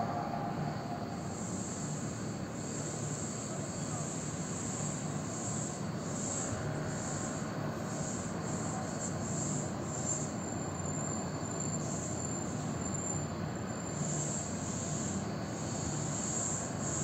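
Steady background hiss and rumble of open-air ambience, with a high insect chirring that pulses on and off throughout, briefly settling into a thin steady whine in the middle.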